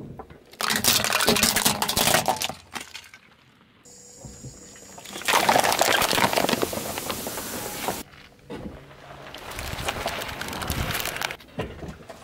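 Car tyre crushing objects one after another: a short crunching and cracking of plastic toy figures, then, about five seconds in, glass bottles breaking under the tyre with a long loud crunch and the drink fizzing out, then a quieter crunching stretch.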